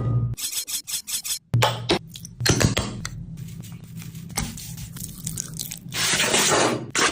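Kitchen food-preparation noises: irregular rubbing and scraping with scattered knocks of utensils or dishes.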